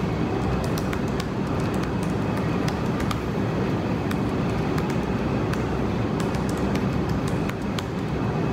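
Laptop keyboard keys clicking irregularly as someone types, over a loud steady rumbling background noise.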